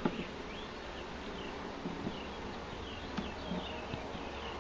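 Swarm of honeybees buzzing around an opened hive, a steady hum, with a few light clicks.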